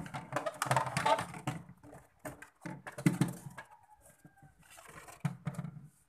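Plastic rear cover panel inside the freezer of an old Mitsubishi two-door refrigerator being unclipped and pried off, with irregular plastic clicks, knocks and short creaks.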